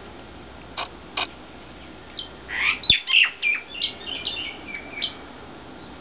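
A bird calling: two short, sharp high notes about a second in, then a quick run of high chattering and squeaky notes lasting about three seconds.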